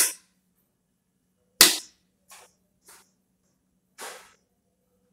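A handful of sharp cracks and knocks: a loud one at the start and another about a second and a half later, two faint ones, and a softer, hiss-like one near the end.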